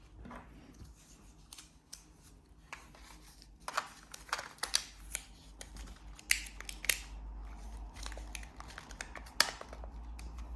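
Irregular sharp clicks, snaps and light scraping of a compact 35mm film camera and its film being handled while a film is loaded.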